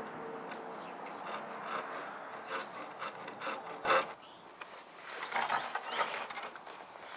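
Uneven scraping and rubbing, with a sharp knock about four seconds in.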